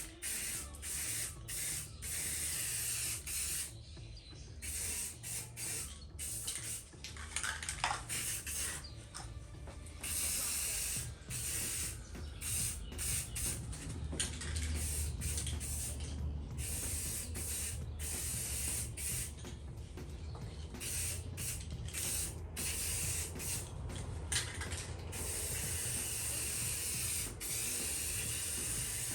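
Aerosol rattle can of satin black spray paint hissing in repeated bursts with short pauses between them as the edges of a plastic van loadbed liner are painted.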